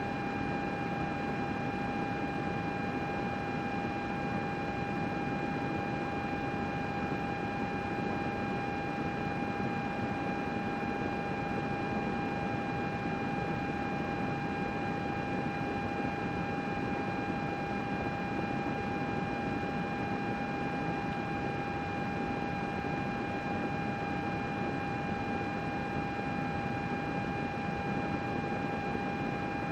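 Computer running steadily: an even fan whoosh with a constant high whine over it.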